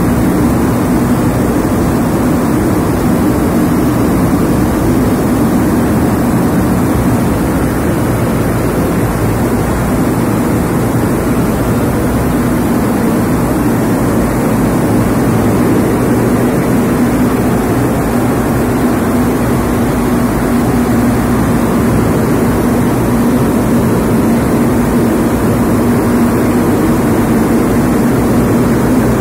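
BOPP tape slitter-rewinder machine running steadily at speed, winding rows of clear packing-tape rolls on its shafts. It makes a loud, even mechanical noise with a constant low hum.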